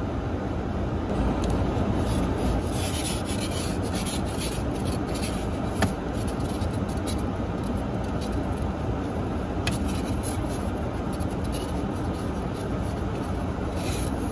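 Plastic ice scraper scratching and rasping frost off the inside of a car windshield in uneven strokes, over a steady low rumble.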